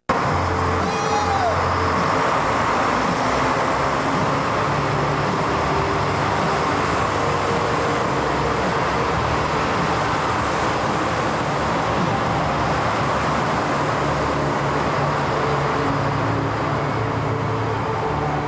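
Steady running noise of diesel trains at a station platform, with soft background music faintly underneath.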